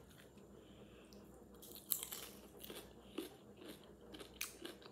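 Close-up bite into a crisp pickle slice, one sharp crunch about two seconds in, then a string of smaller crunches as it is chewed.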